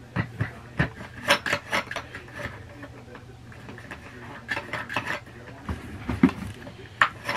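Parts of a Steamfast garment steamer clicking, knocking and scraping against each other in irregular bursts as a piece is twisted and worked at, refusing to screw on.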